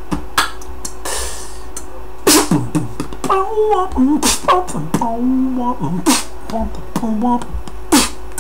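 Vocal beatbox: sharp mouth-made drum hits, a hissed cymbal sound about a second in, then a pitched vocal line that bends up and down, woven between the beats.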